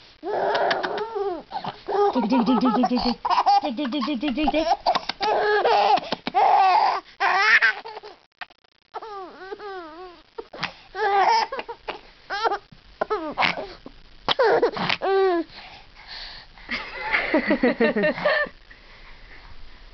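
Baby laughing hard in repeated bouts of belly laughs and high squeals, with short pauses about eight seconds in and again near the end.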